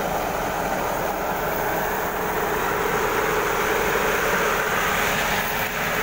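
Paddy (rice) threshing machine running steadily while rice sheaves are fed into its drum: a loud, even machine noise with no breaks.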